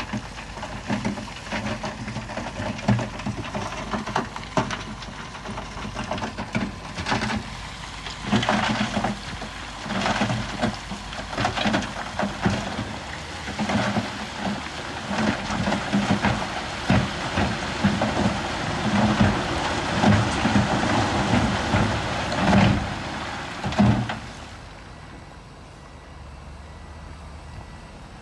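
Heavy earthmoving machine working loose stone: its engine runs under a dense, irregular clatter and crunch of rock. The clatter stops about 24 seconds in, leaving the engine running steadily.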